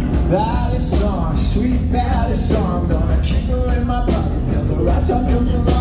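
Live rock band playing the opening bars of a song, with drums, guitars and bass loud and steady.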